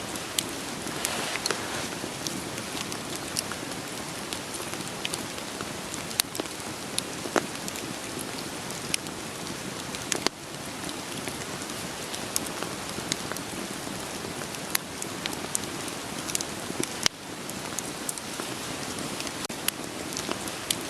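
Steady rain hiss layered with irregular sharp pops and crackles of burning firewood. The sound drops abruptly for a moment twice, about ten and seventeen seconds in.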